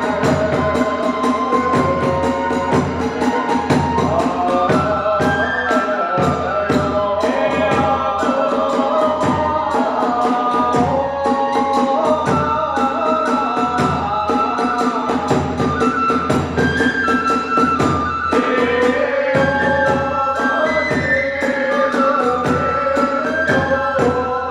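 Hiroshima kagura ensemble music: a high, stepping melody, typical of the kagura bamboo flute, over a fast, steady beat of drum strikes and small hand-cymbal clashes.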